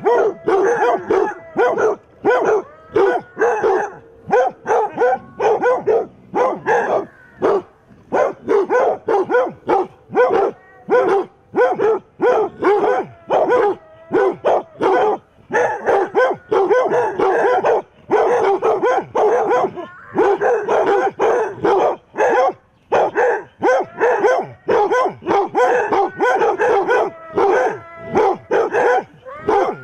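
A pack of basset hounds barking and baying, several dogs at once, in a loud rapid chorus with only brief gaps.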